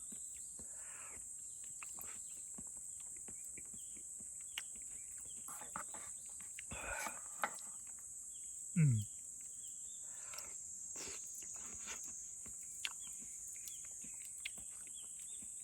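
Steady high-pitched shrilling of summer insects, with scattered small clicks and knocks of eating and handling utensils. About nine seconds in comes one short falling hum of a man's voice.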